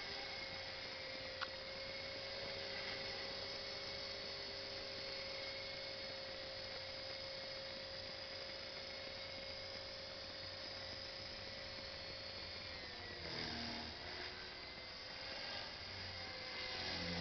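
Align T-Rex 450 SE electric RC helicopter in flight: a steady whine that drops in pitch about thirteen seconds in, then rises and falls as it manoeuvres. There is a single sharp click about a second and a half in.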